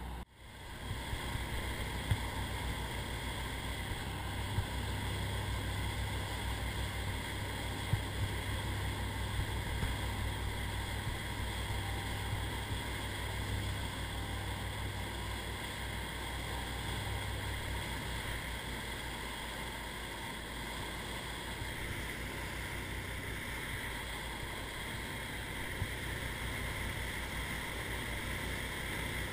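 Sportfishing boat running under way at trolling speed: steady drone of the engines with water rushing along the hull.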